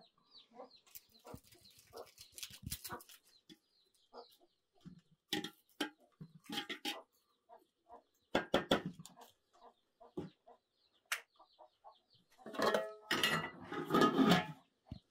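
Chickens clucking, amid a scatter of short sharp knocks and clatter, with a louder, busier stretch near the end.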